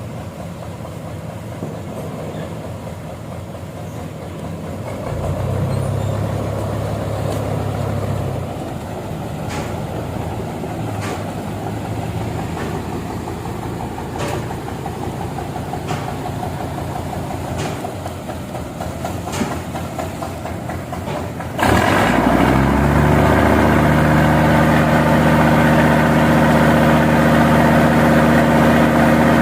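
A heavy engine running steadily, with faint knocks every second or two. About two-thirds of the way through it suddenly becomes much louder, shifts briefly in pitch, then holds a steady run.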